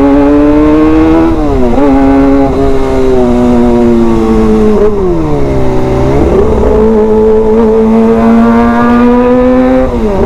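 Kawasaki ZX-25R's inline-four engine through an aftermarket SC Project titanium exhaust, loud under riding. The note climbs steadily and drops sharply a little over a second in and again near the end. About five seconds in it falls away low, then rises again.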